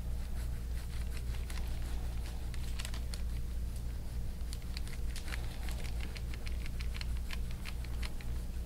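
Soft, irregular clicks and rubbing from hands working deep massage into a patient's skin and muscle, over a steady low hum.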